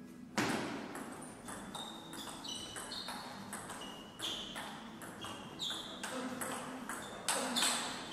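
Table tennis rally: the plastic ball clicking in quick alternation off the paddles and the table, many of the bounces with a short high ping. There is a louder, noisier burst near the end.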